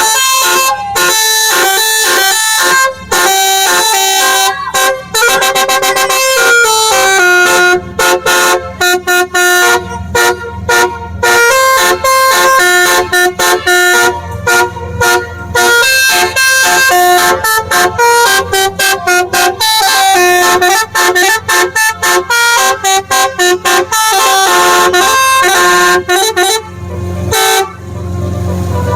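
Basuri 'telolet' musical multi-tone horn playing a fast melody of short, separated horn notes that step up and down in pitch. A low rumble comes in near the end.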